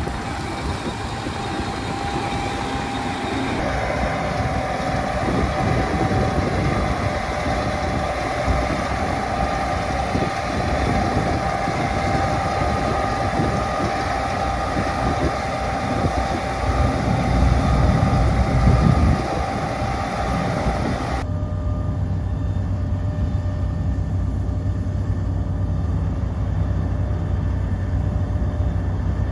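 New Holland CR11 combine running while harvesting wheat: a steady, loud machine noise with a constant whine over it. About two-thirds of the way through the sound changes abruptly to a duller, steadier low hum.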